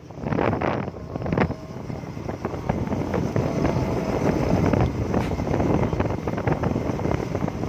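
Wind buffeting the camera's microphone while riding at speed: a continuous rushing rumble that rises and falls.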